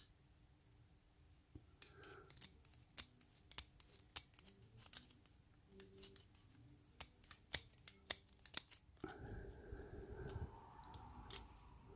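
Sharp metallic clicks and snips of small steel tools on the lock's pins and springs as a pin-tumbler lock cylinder is taken apart, irregular, a couple of clicks a second, a few of them loud. In the last three seconds this gives way to a duller rubbing and handling noise.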